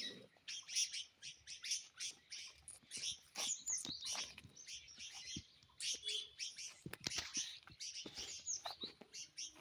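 Many small birds chirping and calling at once in a busy chorus, with short overlapping chirps and whistles.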